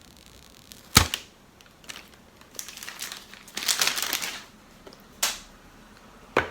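Smartphone box packaging being opened by hand. A sharp tap comes about a second in, then a couple of seconds of paper crinkling and tearing, then two more sharp clicks near the end.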